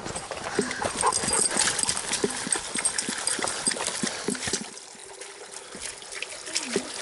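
Footsteps of a hiker and dogs moving over dry leaves and dirt on a forest trail, with irregular knocks and rustles. It quietens about two-thirds of the way in as a small creek comes close, trickling faintly.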